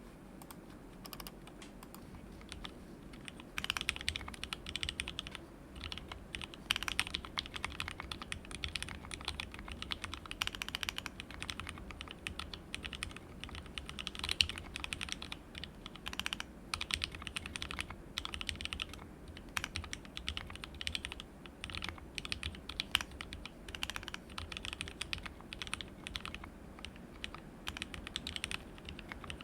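Fast, continuous typing on a mechanical keyboard: lubed, filmed 43 Studio Toy switches mounted plateless on a WT60-D Weirdflex PCB in an NPKC resin case, with ABS Cherry-profile keycaps. The typing begins about three and a half seconds in, with a few keystrokes louder than the rest.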